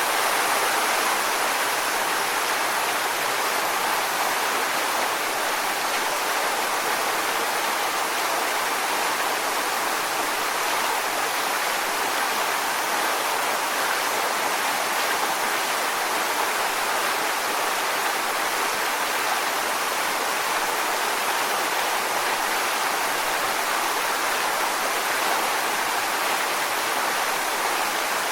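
Waterfall: water falling and splashing onto rocks in a steady, even rush with no pauses or changes.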